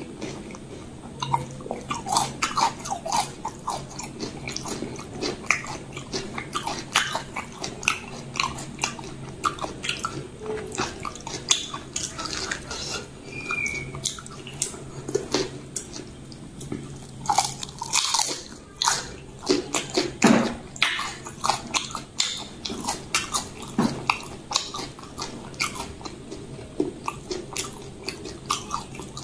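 Close-miked chewing and crunching of pani puri: the crisp, hollow fried shells cracking between the teeth, with wet mouth sounds, as an uneven run of sharp clicks and cracks.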